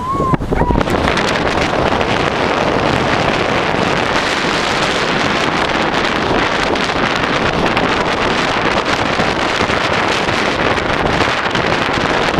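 Steady wind rushing over the microphone of a moving dog sled, mixed with the hiss and scrape of the sled runners on crusted snow. It starts about a second in and then holds level.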